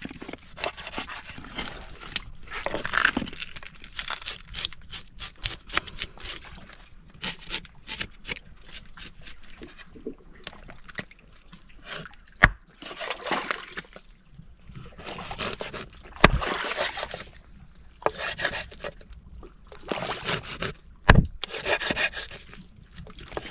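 Water splashing and sloshing in bursts every few seconds, with three sharp knocks.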